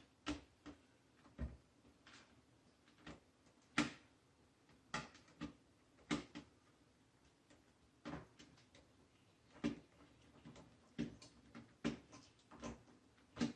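Small screwdriver working screws out of a plastic radio controller's case, making irregular sharp clicks and taps as the driver bites and turns.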